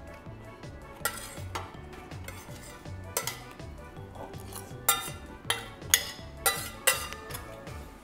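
Metal spoon clinking and scraping against a small two-handled stainless steel pot, about seven sharp clinks, most of them bunched together in the second half.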